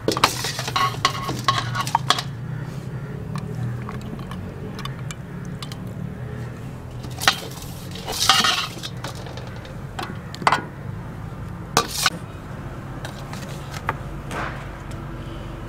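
A steel ladle clinks and scrapes against a steel cooking pot as mutton curry is spooned over the rice layer. There is a quick run of clinks in the first two seconds, then single clinks and a longer scrape about eight seconds in, over a steady low hum.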